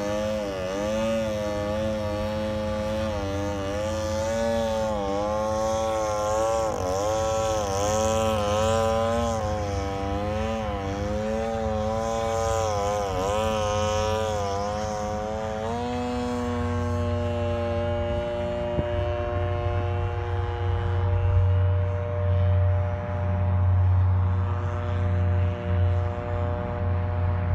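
Gas engine of a radio-controlled model airplane in flight, its propeller buzz swinging up and down in pitch as it manoeuvres. About halfway through it settles to a steady pitch as the plane flies off.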